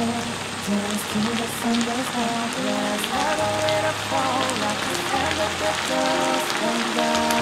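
Soy-and-oyster sauce with shrimp and shiitake mushrooms bubbling in a frying pan: a steady crackle of small pops. Background music with held bass notes and a melody plays over it.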